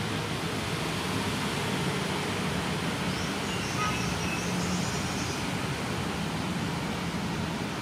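Steady outdoor background rumble and hiss, with faint high-pitched sounds around the middle.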